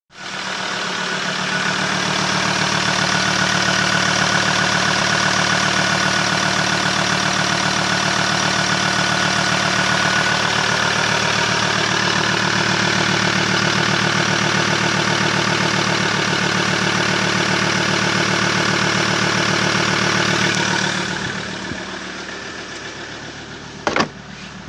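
Ford Ranger's 3.2-litre five-cylinder turbo-diesel idling steadily with a regular pulse, heard close up in the open engine bay. About 21 seconds in it turns quieter and muffled as it is heard from inside the cab. Two sharp knocks come near the end.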